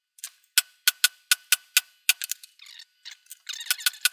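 A quick run of sharp clicks, about four a second, broken by short pauses: a hand tool tapping on a leather strap on the workbench while hole positions are marked out from a guide strap.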